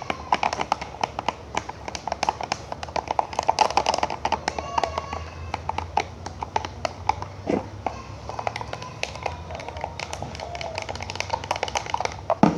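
Glue-and-activator slime mixture being stirred in a container: rapid, irregular clicks and taps of the stirring utensil against the container. The mixture is still runny glue that has not activated into slime.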